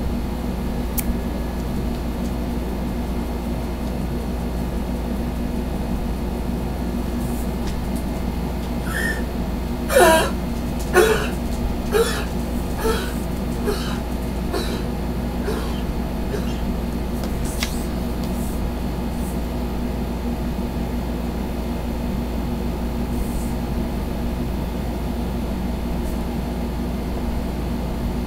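Steady background hum throughout. Near the middle comes a run of about seven short barks from a small dog, about one a second and fading away.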